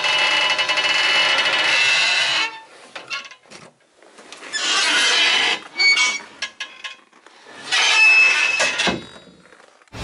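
Door hinge creaking and squealing: a long grinding squeal, then after a short pause several shorter squeaks.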